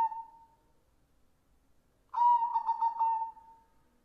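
White zebra dove (perkutut) cooing: the end of one phrase fades out at the start, then a full rhythmic coo phrase of quick stuttering notes comes about two seconds in and lasts over a second.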